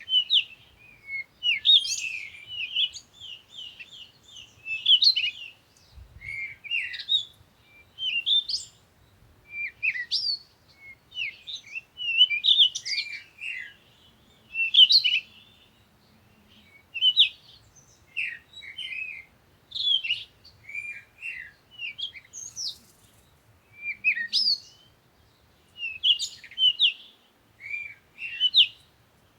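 Songbirds chirping and twittering: clusters of quick, high notes, many sliding down in pitch, repeating every second or two.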